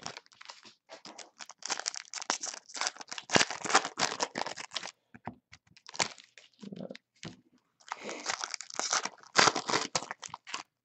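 Foil trading-card pack wrappers from 2014-15 Donruss basketball packs being torn open and crinkled by hand, in irregular crackly bursts with short pauses.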